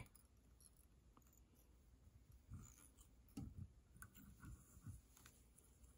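Near silence, with a few faint soft knocks and ticks of handling as tying thread is wrapped onto a hook held in a fly-tying vise.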